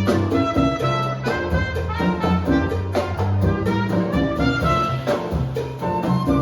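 Latin jazz combo playing live: a brass melody over a moving bass line and hand percussion.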